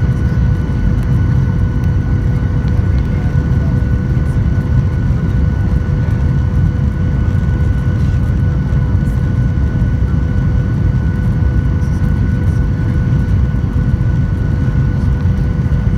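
Cabin noise inside a Boeing 737-800 on final approach: a steady low rumble of its CFM56 turbofans and the airflow past the fuselage, with a faint steady whine over it.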